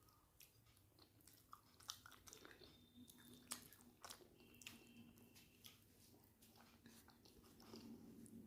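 Faint mouth sounds of a person eating a rice meal: chewing, with many small irregular clicks and smacks.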